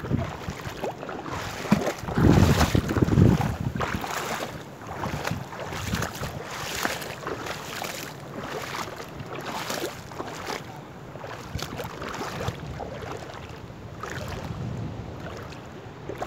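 Legs wading through shallow seawater, sloshing and splashing in an uneven rhythm, with wind buffeting the microphone, the buffeting heaviest about two to three seconds in.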